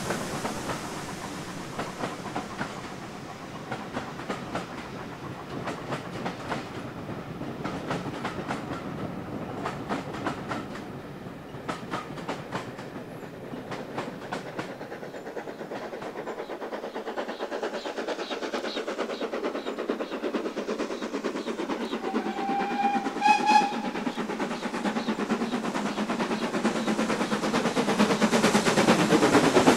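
Steam-hauled train coaches rolling away over the rail joints with a fading clickety-clack, then a short steam whistle about two-thirds of the way in. Near the end the exhaust of an approaching steam locomotive, BR Standard 4 tank 80078, grows steadily louder.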